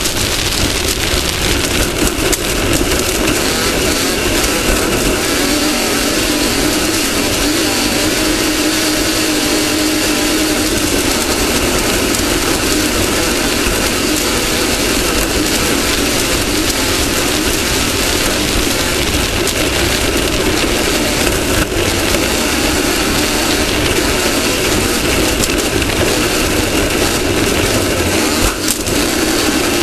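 Off-road race car's engine running hard under a steady load, with a dense rush of noise over it and no clear shifts or lifts.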